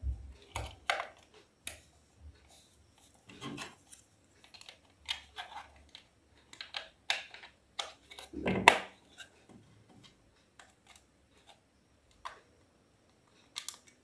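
Irregular plastic clicks and knocks as batteries are pushed into a toy's plastic battery compartment and the cover is pressed shut, the loudest knock a little past the middle.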